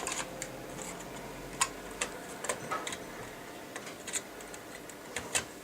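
Irregular small clicks and taps of circuit boards being handled and slotted together into an electronic temperature controller's display board.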